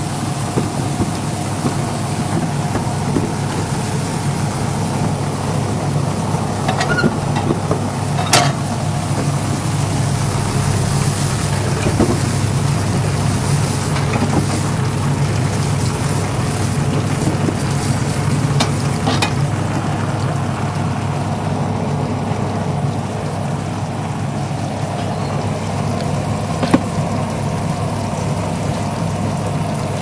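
Vegetable-processing machinery running: a steady electric-motor hum under an even hiss, with a few sharp clicks or knocks, the sharpest about eight seconds in.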